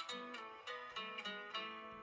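A smartphone's ringtone or alarm melody playing: a tune of plucked-sounding notes, about three or four a second, each ringing briefly and fading.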